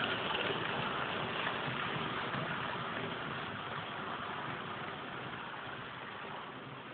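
00 gauge model train running past on the track: a steady rumble of wheels on the rails that slowly fades over the last few seconds.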